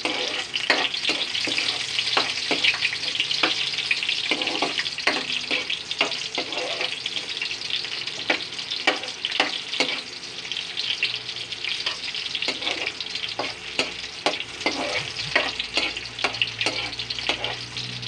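Chopped garlic and onion sizzling in hot oil in a metal wok, with a metal spatula clinking and scraping against the pan again and again as they are stirred.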